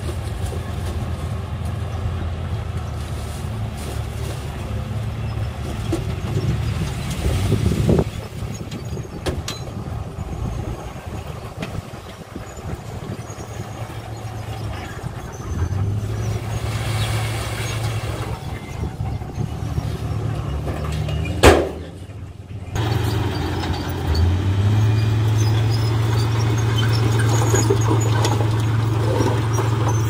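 Diesel dump truck engines running while the tipper bed is raised and a load of rock and soil is dumped; the engine drone steps up about halfway through and again near the end, as it is run up to drive the bed's hydraulic lift. One sharp knock stands out about two-thirds of the way through, followed by a brief lull.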